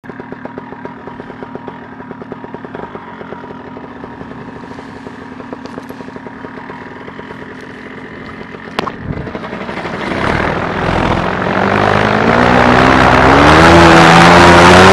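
A small motor runs steadily at low speed, a sharp click sounds a little before nine seconds, then the motor spools up, rising in pitch and growing much louder over the last five seconds, as for a takeoff.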